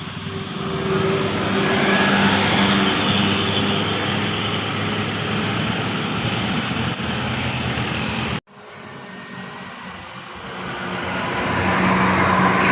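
A bus passing close by, its engine running with tyre and road noise that builds over the first couple of seconds and then holds steady. About eight seconds in the sound cuts off abruptly, then another vehicle approaches and grows louder toward the end.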